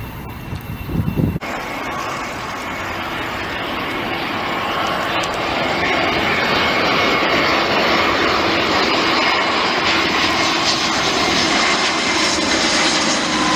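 Airbus A320-232 jet engines (IAE V2500) on landing approach: the noise builds over the first several seconds and then holds, with whining tones that slowly drop in pitch as the aircraft comes closer. Before that, a low rumbling on the microphone cuts off suddenly about a second and a half in.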